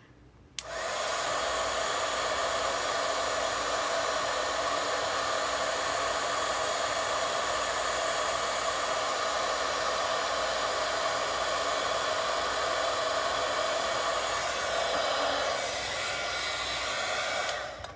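Craft heat embossing gun switched on about half a second in, blowing steadily with a fan whir and air hiss while it melts embossing powder on a tag from underneath. It switches off near the end.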